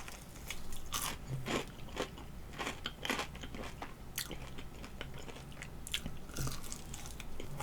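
A person chewing and biting a hot-sauce-coated chicken wing close to the microphone: irregular short clicks and crunches.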